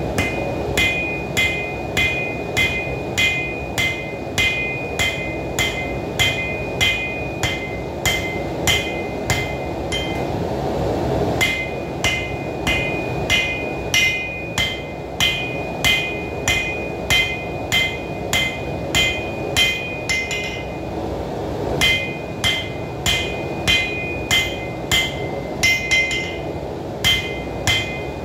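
A hand hammer striking a red-hot steel knife blade on a steel anvil in a steady rhythm of about two to three blows a second, each blow ringing. The smith is drawing out and thinning the edge bevel. There are brief pauses about ten and twenty-one seconds in, and a steady low rush sits underneath.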